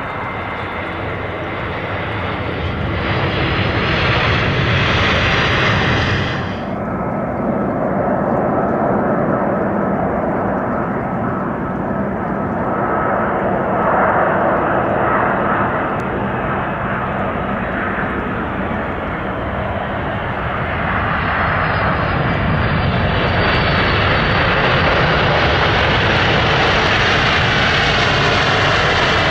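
Boeing 747 freighters' four jet engines. One 747 rolls on the runway, then after an abrupt cut another comes in to land, its engine whine and roar growing louder toward the end as it reaches the wet runway.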